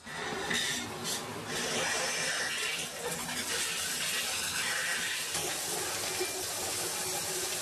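Shower turned on with a single-lever valve: the water starts suddenly and runs in a steady spray.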